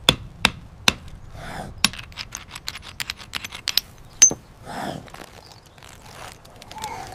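Stones struck together in flint knapping: sharp clicks and taps, a few loud strikes among a rapid run of lighter ticks between about two and four seconds in.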